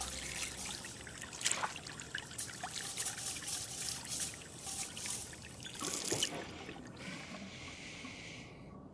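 Kitchen faucet running into a sink while a pot is washed: water splashing, with a few clinks and knocks of pots and dishes. About seven seconds in, the splashing gives way to a thinner, steady hiss.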